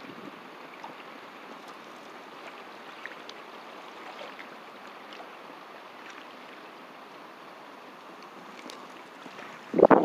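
Steady wind rushing over the microphone with a faint hiss, broken by a few small ticks. Just before the end a sudden loud buffeting of wind on the microphone sets in.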